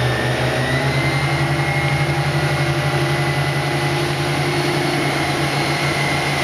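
Suzuki outboard motor running at steady towing speed, a continuous engine hum with a thin high whine above it that climbs slightly at the start and then holds.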